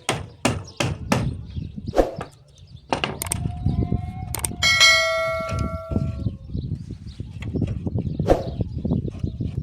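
Sharp knocks, about three a second at first, then a few scattered blows. About halfway through comes a loud metallic clang that rings on for a second and a half.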